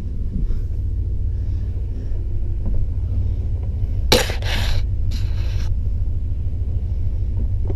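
Steady low rumble, with two short clattering knocks about four and five seconds in.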